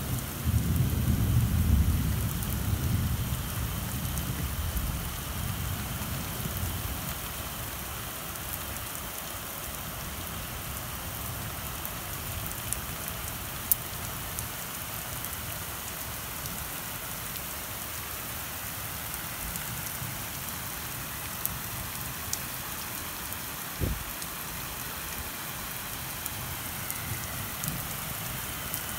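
Steady rain falling on wet ground and surfaces. A low rumble fades away over the first few seconds, and a few sharp ticks sound later on.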